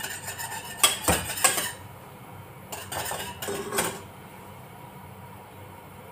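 Wire whisk stirring a caramel pudding mixture in a stainless steel saucepan, scraping and clinking against the metal in quick, even strokes. It slows to a few separate clinks about three seconds in, then stops.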